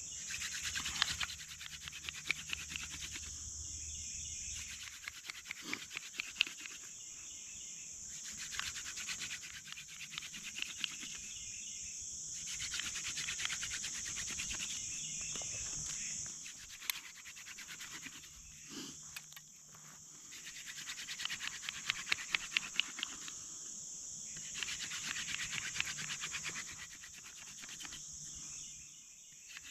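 Hand-drill friction fire: a dog fennel spindle spun between the palms, rubbing and grinding in a burned-in cedar fireboard in runs of several seconds at a time, with heavy breathing from the effort. A steady high insect drone runs underneath.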